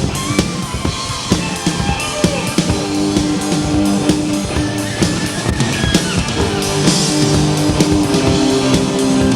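Live rock band playing an instrumental passage: a drum kit keeps a steady beat under bass and guitar, and a lead line slides between held notes.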